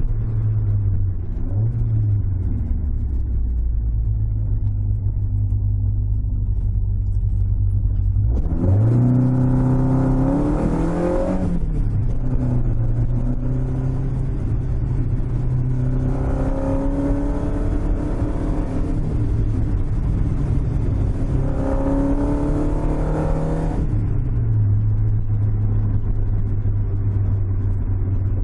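Toyota AE86's 4A-GE twin-cam four-cylinder, heard from inside the cabin on the road: it cruises steadily, revs up hard about a third of the way in with a drop at the gear change, climbs twice more, then settles back to a steady cruise near the end. The engine pulls cleanly now that the fault that nearly blew it has been fixed.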